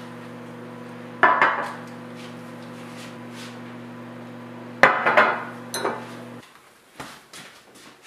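Things being handled and set down on a glass tabletop: a rustle and knock about a second in, then a sharp knock of a glass bottle put down, with paper wrappers rustling, about five seconds in, and a few light clicks near the end. A steady low hum underneath cuts off abruptly about six and a half seconds in.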